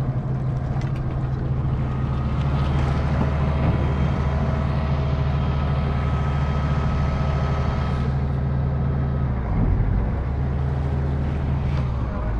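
Outboard motor running steadily at low speed, a constant low engine hum with a brief change in level a little after nine seconds in.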